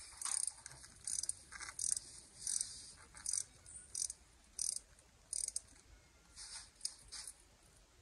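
Ratchet wrench clicking in short bursts, about one every three-quarters of a second, as it is swung back and forth to back out a transmission pan bolt.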